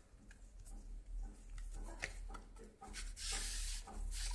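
Paper and card rustling and sliding as a tempered-glass screen protector in its paper sleeve is drawn out of a cardboard pack, with small taps and a longer scraping rush a little after three seconds in.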